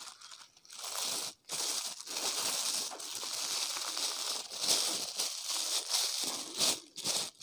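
Thin plastic bag crinkling as it is handled and folded around a doll crier, a continuous rustle that stops briefly about a second in and again near the end.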